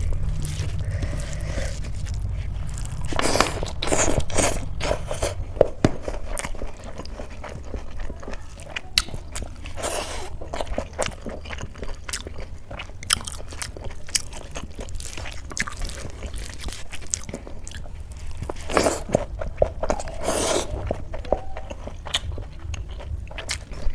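Close-miked eating: biting, chewing and crunching of food in a series of short, sharp clicks and crackles, louder about three to five seconds in and again near twenty seconds, over a steady low hum.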